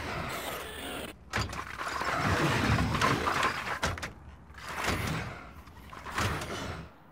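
Harsh mechanical noise from the film's sound design, swelling and fading in several waves, with a short break about a second in, and cutting off abruptly near the end.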